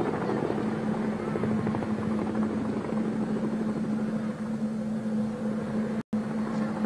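Tandem-rotor military helicopter hovering low, its engines and rotors running with a steady hum. The sound drops out for an instant about six seconds in.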